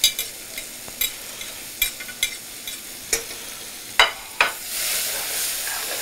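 Onion being stirred in hot olive oil in a metal pan with metal tongs: sharp clicks and scrapes of the tongs against the pan over a low sizzle. About four and a half seconds in, the sizzle swells into a louder, steady hiss.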